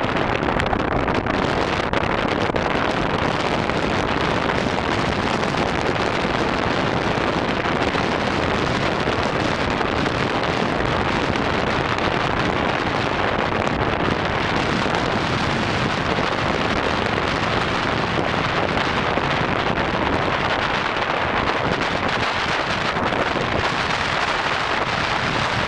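Steady wind buffeting the microphone, over surf breaking on the beach.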